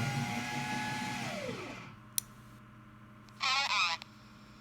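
Baofeng BF-888S handheld radio's speaker putting out a whine over a low buzz, the radio's audio fault on channel 3: the tone glides up, holds steady, then slides down and dies away before two seconds in. About three and a half seconds in comes a short warbling chirp.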